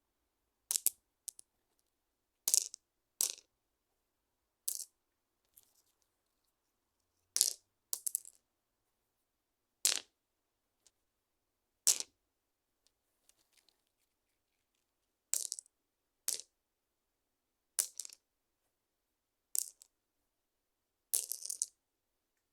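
Stones clacking: a series of sharp, separate clicks, some in quick pairs, spaced one to three seconds apart, with a longer rattling clatter near the end.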